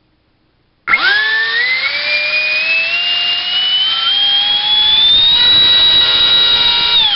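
70 mm four-blade electric ducted fan, driven by a 3800 kV brushless inrunner on a 5-cell battery, spooling up from rest about a second in with a whine that climbs steadily in pitch. It holds at its peak power with a slight vibration, then winds down with a sharply falling whine near the end.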